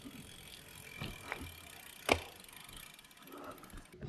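Bicycle rolling slowly and quietly, with faint freewheel ticking near the end and a single sharp knock about two seconds in.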